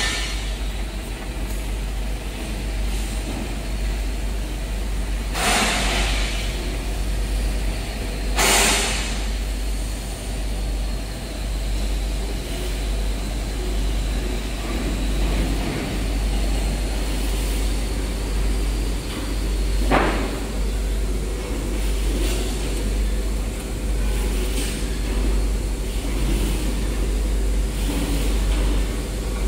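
EVERLIFT CQD15K electric reach truck at work: a steady high electric whine over a low hum, with short hisses about five, eight and twenty seconds in.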